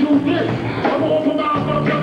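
Live band music with electric guitar, bass and drums, with held bass notes that change every half second or so.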